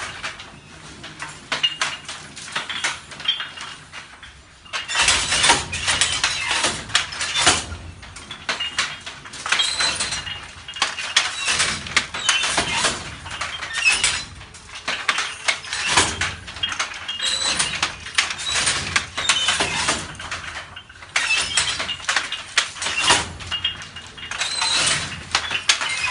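Wooden handloom with a jacquard harness clattering as it is worked: the shuttle shot across by a pull cord and the beater knocked against the cloth. Bursts of rapid wooden clacks and knocks every couple of seconds, with a quieter stretch in the first few seconds.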